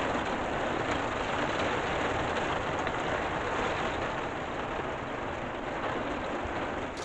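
Heavy rain pelting a camper van's windscreen and body, heard from inside the cab as a dense, even hiss over a low rumble from the vehicle.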